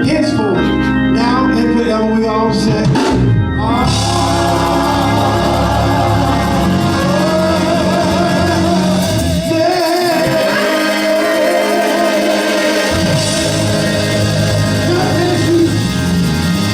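Live church worship music: a singer holding long, wavering notes over a band, with the low bass dropping out for a few seconds about ten seconds in.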